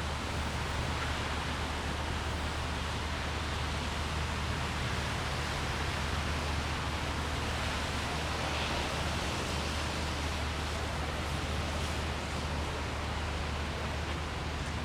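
Steady rushing hiss of rain and wet-road traffic, with a constant low rumble underneath.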